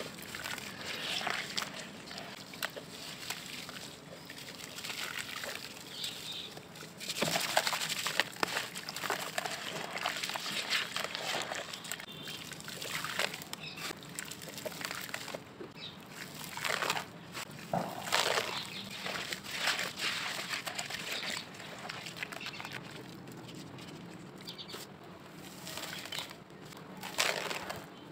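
Crumbled lumps of dry grey clay dropped into a basin of water, then crackling and fizzing irregularly as they soak and break apart, with louder spells of crackle now and then.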